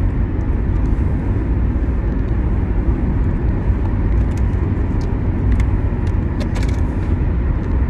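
Steady low rumble of a car heard from inside the cabin, with a few light clicks about midway through as a plastic water bottle is handled and its cap twisted.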